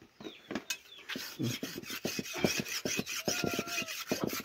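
A sickle blade being sharpened: rapid, regular scraping strokes at about four to five a second, starting about a second in.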